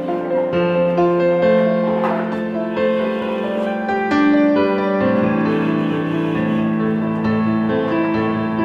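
Instrumental background music with held keyboard notes changing step by step.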